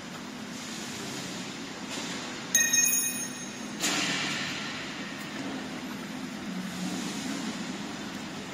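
Stainless-steel continuous frying machine running with a steady machine hum. About two and a half seconds in, a loud high-pitched squeal lasts about a second. A sudden hiss follows and fades over a couple of seconds.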